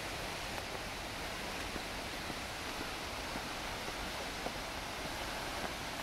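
Steady, even rushing of a waterfall heard from a distance, with a few faint taps.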